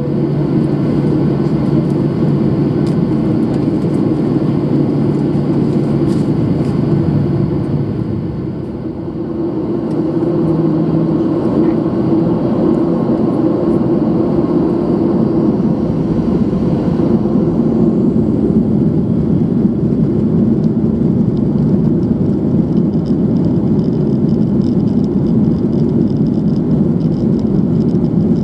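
Jet airliner's engines and airframe noise heard from inside the cabin, a steady rumble that dips briefly about a third of the way in and then grows louder as the plane rolls down the runway, with a thin high engine whine coming in near the end.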